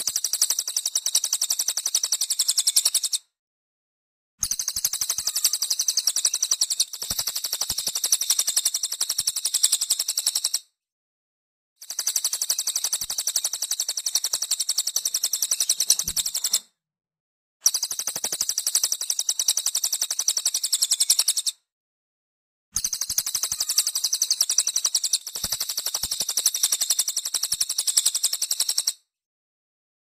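Cililin songbird singing long, very rapid, high-pitched chattering trills in phrases of about four to six seconds, broken by silent gaps of about a second, five phrases in all.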